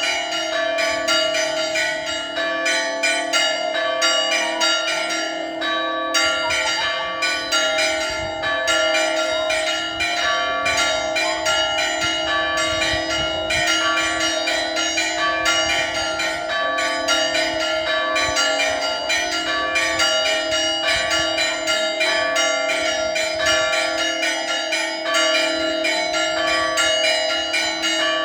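Church bells ringing loudly in a rapid, continuous festive peal. Several bells of different pitch are struck a few times a second over a steady ringing hum.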